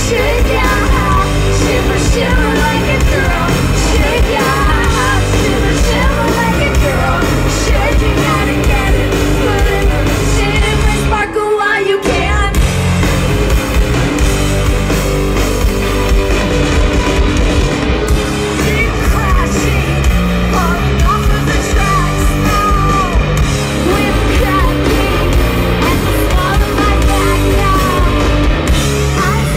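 Live rock band playing electric guitars and drums, with a woman singing over them. The band stops briefly about eleven seconds in, then comes back in.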